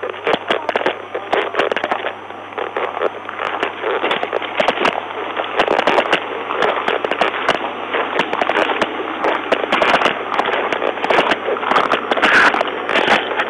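Radio static: dense crackling hiss full of sharp clicks over a steady low hum, as on a police cruiser's recorded radio or wireless-microphone channel with no clear signal.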